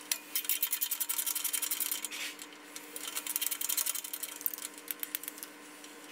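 Hand ratchet clicking in fast runs of pawl clicks as a nut is spun off an exhaust support stud. The clicking is densest in the first two seconds, then comes in shorter, sparser runs.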